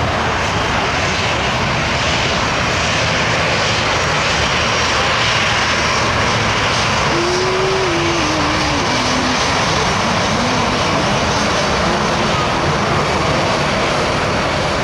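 Jet engines of an Airbus A320 on the runway passing close by: a loud, steady rush of jet noise, with a faint falling tone about halfway through.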